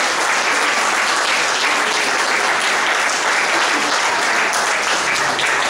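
Audience applauding steadily, a dense clapping.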